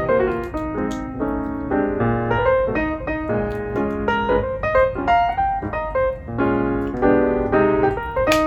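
Piano music: a melody of many short notes over low chords.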